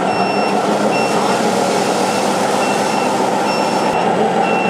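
Reversing warning beeper of an RC scale model truck, short high beeps repeating at uneven intervals, over a steady din.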